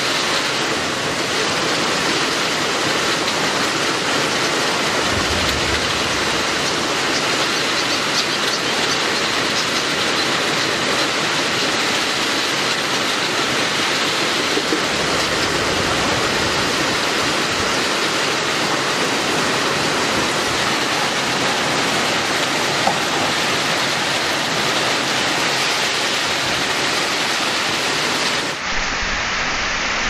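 Heavy tropical rain pouring down, a loud steady hiss.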